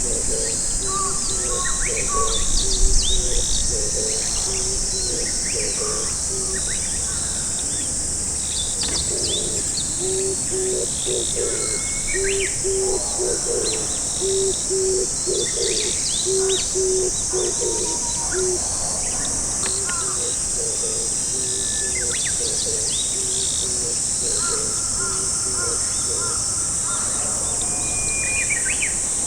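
Oriental turtle dove singing its low cooing phrase over and over, loudest from about ten to eighteen seconds in. Small songbirds chirp and a steady high insect drone runs underneath.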